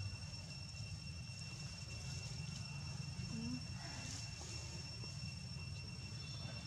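Steady outdoor background: a constant high-pitched whine over a low rumble, with faint rustling of dry leaves around four seconds in.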